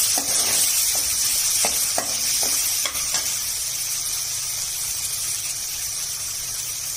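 Chopped onions, ginger and garlic sizzling in hot oil in a metal kadai, with a steady hiss. A metal slotted spoon scrapes and taps against the pan several times in the first three seconds while the mixture is stirred and spread out.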